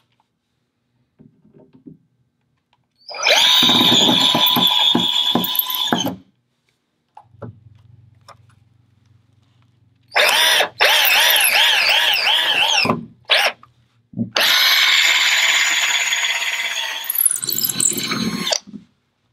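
Cordless Hitachi drill-driver driving TAPCON concrete screws through a fan mounting plate into concrete block. It runs in three long whining bursts of a few seconds each; the middle one stops and restarts briefly.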